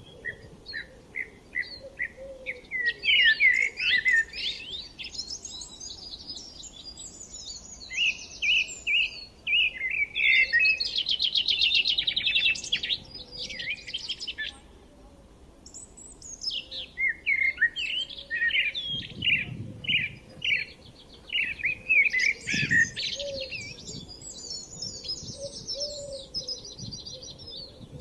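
Songbirds chirping and singing: quick runs of short chirps and trills that overlap in dense bursts, with a brief lull about halfway through.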